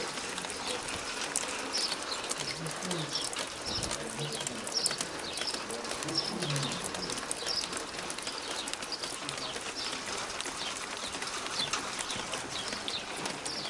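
Rain falling steadily: an even hiss with the patter of single drops striking, and a few short low calls over it.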